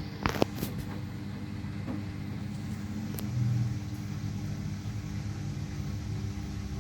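Samsung Series 5 front-loading washing machine spinning with an unbalanced load: a steady motor hum and drum rumble, with a few sharp knocks at the start and a louder low surge about halfway through.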